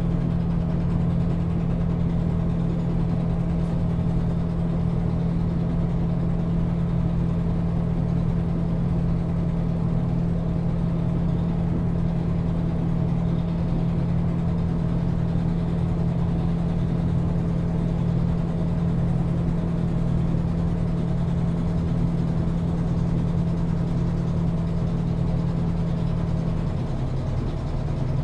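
The diesel engine of a 2004 Solaris Urbino II 18 articulated bus running steadily at idle, a low, even drone. Near the end the engine note drops slightly.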